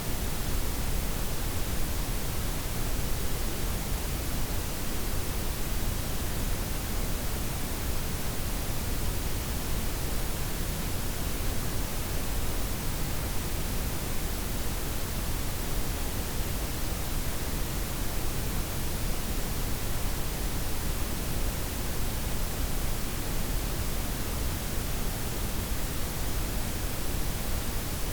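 Steady blended white, pink and brown noise, even hiss with a strong low rumble and softened highs, unchanging throughout.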